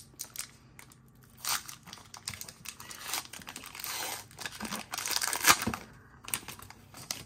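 The wrapper of a 2020 Topps Heritage baseball card pack being torn open and crinkled by hand: a run of short rips and crackles, loudest about five seconds in.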